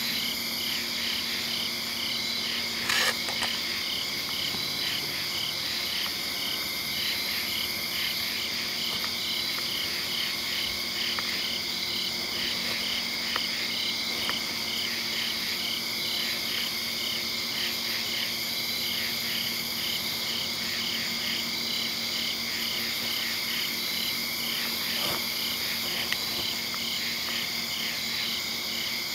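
Night chorus of insects and frogs: steady high-pitched trilling with a pulsing call that repeats evenly a couple of times a second, and one brief click about three seconds in.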